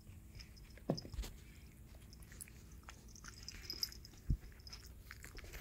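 Shih Tzu–Bichon Frise puppy moving about and nosing at the microphone: scattered soft clicks and rustles, with two dull knocks, about a second in and again later on.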